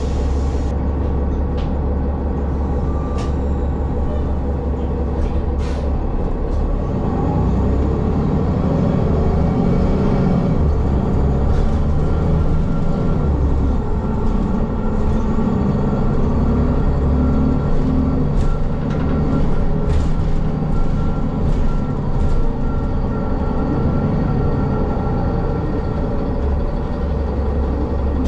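Ride inside a city bus under way: a steady low engine and road rumble, the engine note rising and falling as the bus speeds up and slows, with a thin steady whine joining about twelve seconds in and a few light rattles and clicks.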